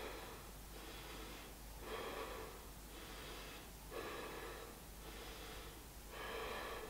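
A woman breathing audibly and steadily, each breath a soft rush of air at roughly one a second, from the effort of holding an upward plank yoga pose.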